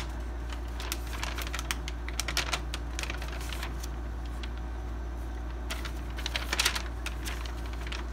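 Paper rustling and crinkling as the sheets of a printed booklet are handled and flipped, in scattered clusters of short crackles, busiest about one to three seconds in and again around six to seven seconds in, over a steady low hum.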